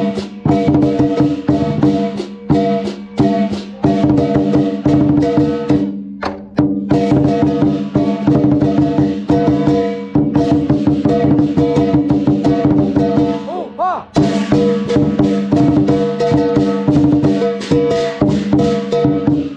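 Chinese lion dance drum beaten in a fast rhythm, with sharp wooden clicks and ringing cymbals and gong, breaking off briefly twice.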